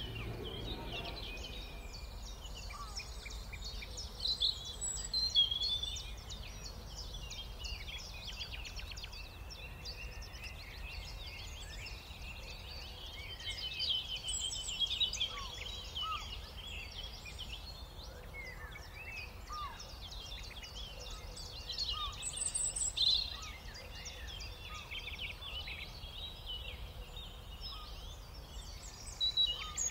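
Many small birds chirping over one another, a busy stream of short high chirps with louder flurries every several seconds, over a steady low background rumble.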